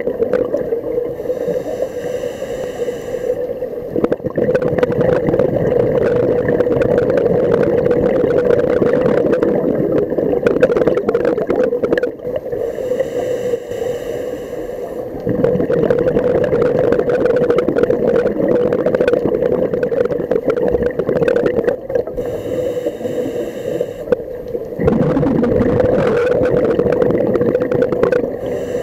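Muffled underwater sound picked up by a submerged camera: steady water noise with a constant hum and scattered faint clicks, dropping in level for a few seconds about midway.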